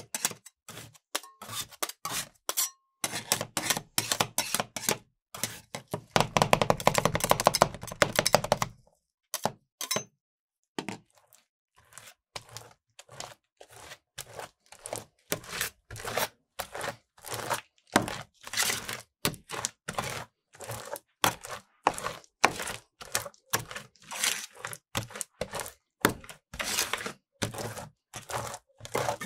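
Metal spatulas chopping and scraping frozen ice cream mix with brownie and raspberries on a steel cold plate: rapid sharp taps of the blades against the metal. There is a denser scraping stretch a few seconds in and a brief pause before the chopping resumes.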